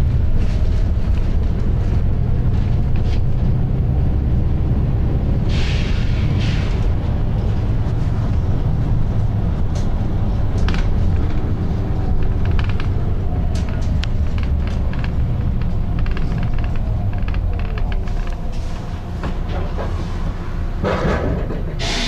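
Volvo B9TL double-decker bus under way, heard from inside: a heavy engine rumble with a faint whine rising and falling in pitch. Short bursts of air hiss come about six seconds in and again near the end.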